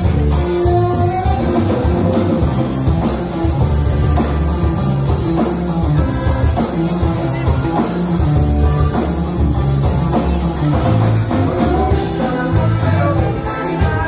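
Band music with drum kit, bass and guitar playing a steady beat, with some singing.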